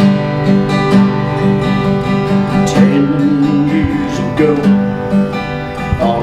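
Acoustic guitar strummed in a steady rhythm, playing the instrumental introduction to a country ballad before the vocal comes in.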